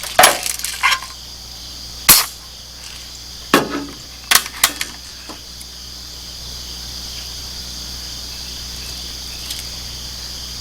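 Crosman pump air rifle firing once, a single sharp crack about two seconds in, with metallic clicks of the bolt being worked and a pellet loaded before and after it. Steady insect trilling in the background.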